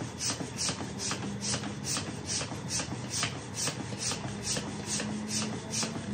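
Hand shock pump worked in quick, even strokes, about three a second, raising the air pressure in an electric unicycle's air suspension. A faint steady hum runs beneath from about a second in.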